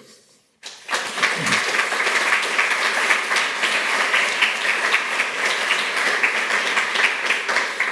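Audience applauding. The clapping starts under a second in and then holds steady, many hands at once.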